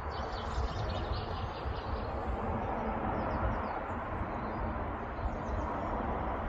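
Small birds chirping and twittering in quick short calls over a steady low outdoor rumble.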